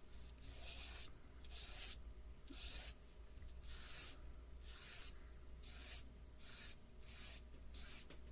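Soft chalk pastel rubbed on paper with the hand in repeated upward strokes, blending the colour: a steady rhythm of short swishes, a little under two a second.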